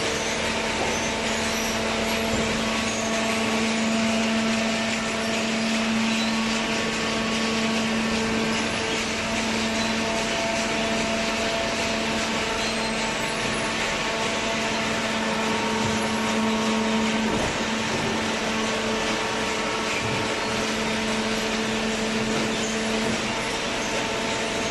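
Cardboard baler machinery running: a steady mechanical hum over a constant hiss, with a low drone that fades near the end.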